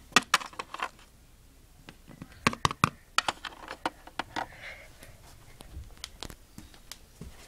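Plastic Littlest Pet Shop figures and playset pieces being handled, making clusters of sharp clicks and taps with scattered single taps between.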